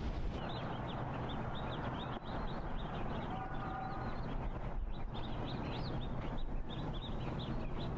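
Many small birds chirping in quick, overlapping calls over a steady background hum of ambience, part of a soundtrack added to old silent film footage. A brief pitched tone sounds a little before halfway.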